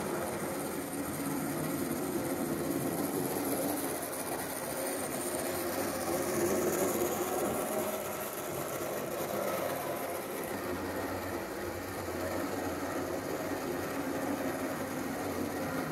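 Small electric motor and gearing of a 009 narrow-gauge model locomotive whirring steadily as it runs round the track. A faint high whine rises and falls a little near the middle.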